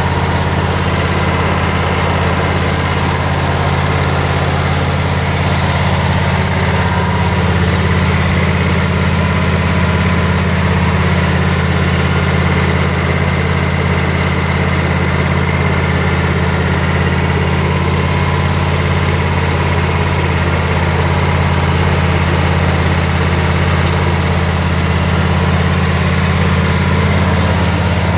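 The Kohler engine of a 2012 Exmark Turf Tracer commercial walk-behind mower running steadily at an even speed.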